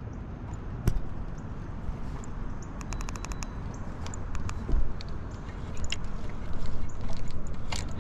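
Low rumble of wind buffeting the camera microphone, with scattered clicks and taps from handling a spinning rod and reel. A quick run of clicks comes about three seconds in.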